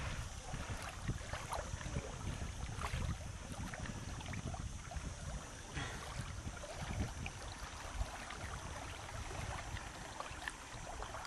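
Wind rumbling on the microphone, with scattered light clicks and crunches of pebbles underfoot on a shingle shore.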